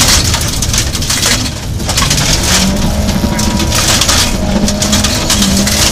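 Rally car at speed on a gravel stage, heard from inside the car: the engine revs rise and fall with the gear changes, while loose gravel sprays and rattles against the underside in loud hissing surges.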